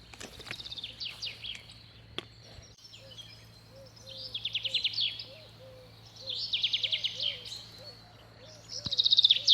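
Birds singing: a high, rapid trilled phrase repeats every couple of seconds, over a softer, lower chirp repeated about twice a second.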